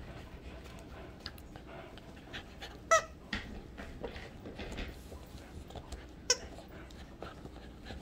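Squeaker in a plush dog toy squeaking twice, short and shrill, as two dogs bite and tug at it, with small clicks and rustling in between.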